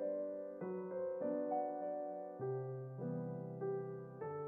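Background piano music: a gentle, slow piece with sustained notes and chords changing every second or so.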